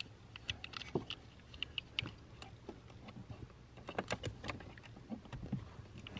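Scattered light clicks and ticks of a folding Torx key set being handled, its metal keys swung and clicked against the plastic handle.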